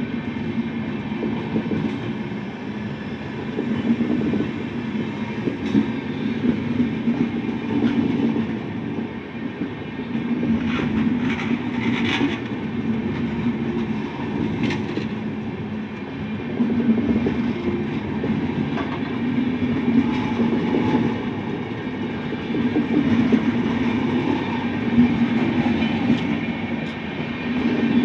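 Train running along the track: a steady rumble with wheels clacking over the rail joints, swelling and easing, with a brief sharper, higher noise near the middle.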